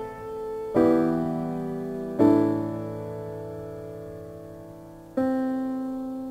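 Slow background piano music: three chords, struck about a second in, a little after two seconds and near five seconds, each left to ring and fade.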